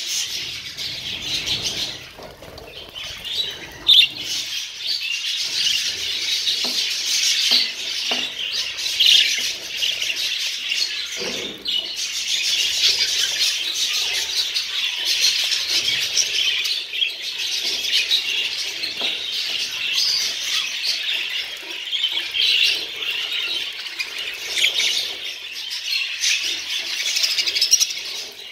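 A group of budgerigars chattering and chirping without pause, many calls overlapping.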